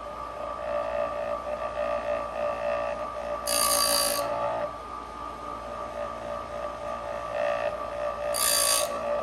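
Electric raker grinder motor running with a steady whine, and twice a brief loud hissing grind as the wheel takes down a chainsaw chain's depth gauge, about four to five seconds apart.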